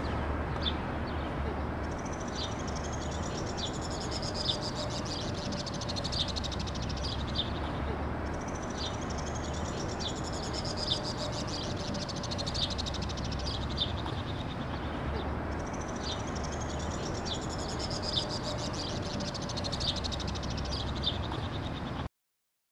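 Outdoor ambience of birds chirping over a low steady hum, in a pattern that repeats every six or seven seconds; it cuts off suddenly near the end.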